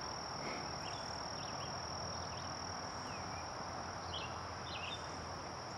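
Woodland ambience: a steady, high-pitched insect trill with a few short bird chirps scattered over it.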